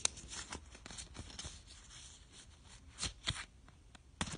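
Pokémon trading cards being slid and flipped through in the hands: a run of soft card clicks and rustles, with a couple of louder snaps about three seconds in.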